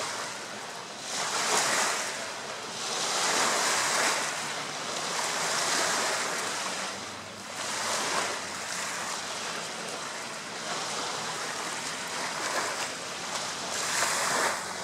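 Small lake waves breaking and washing up a pebbly beach, the rush swelling and fading every couple of seconds.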